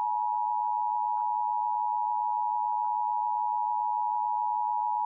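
Emergency Alert System attention signal: a single steady, unbroken alert tone just under 1 kHz, the warning tone that comes before a severe thunderstorm warning is read out.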